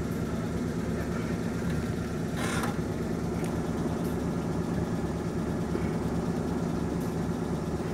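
Off-road 4x4 engine idling steadily, with a brief hiss about two and a half seconds in.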